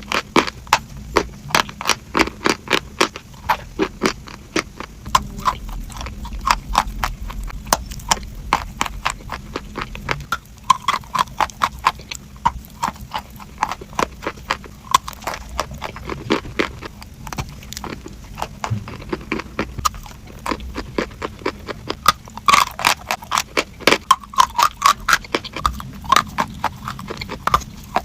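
Close-up eating sounds: rapid crunchy, clicky bites and chewing, several sharp clicks a second.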